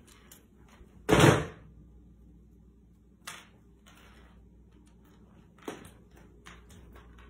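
A sudden loud rustling knock about a second in, then a few lighter taps and clicks, from a cat wand toy and cat tunnel being played with on a wooden floor.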